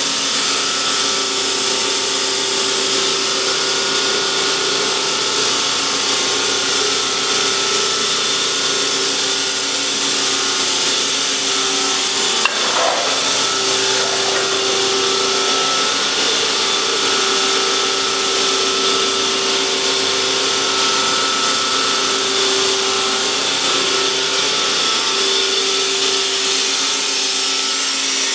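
Hydraulic pump of a Strippit LVD 165-ton CNC press brake running steadily: a continuous hum and whine over a hiss, with one brief click about halfway through.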